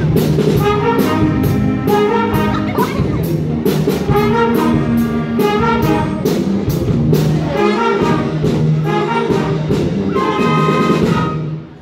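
School concert band playing: flutes, saxophones and other winds over a steady percussion beat. The piece ends on a held chord that cuts off just before the end.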